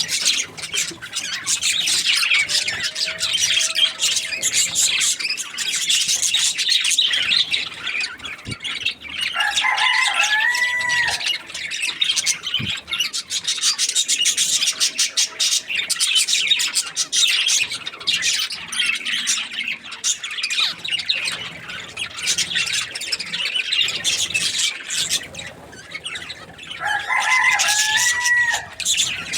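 Budgerigars chirping and chattering continuously in quick, high twitters. A lower, clearer call stands out twice, about ten seconds in and near the end.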